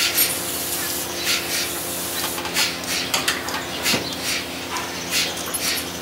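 Milking machine running: a steady vacuum-pump hum under short, rhythmic hissing pulses from the pulsator, coming about once or twice a second. A steady high hiss of air runs for the first two seconds, while the milking unit is readied for attaching to a cow.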